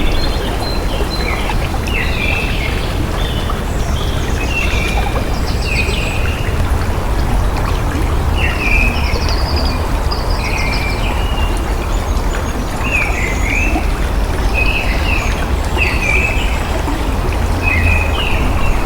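Running water flowing steadily, with birds chirping in short, repeated calls over it.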